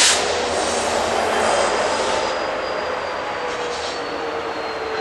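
BNSF coal train's freight cars rolling away on the rails, the rumble fading. Thin wheel squeals run over the rolling noise and drop slightly in pitch as the train recedes.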